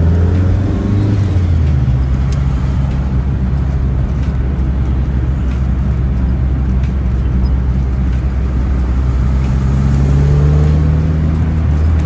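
Pickup truck's engine while driving: the revs fall away about a second and a half in, run steady, then climb again about nine seconds in and ease off near the end.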